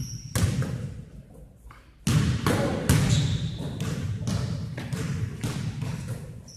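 Basketball bouncing on a hardwood gym floor: a few separate thuds, then steady dribbling at about two bounces a second from about three seconds in, echoing in the large hall.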